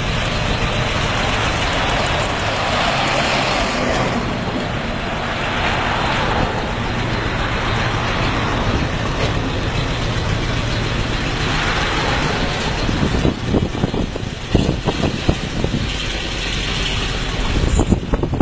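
Motor vehicle engines running steadily. Wind buffets the microphone in the last few seconds.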